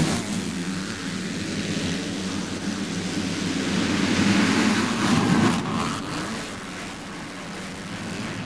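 A full gate of 250cc four-stroke motocross bikes revving together and launching off the start at full throttle, a massed engine noise that swells to its loudest about four to five seconds in, then eases slightly as the pack heads away.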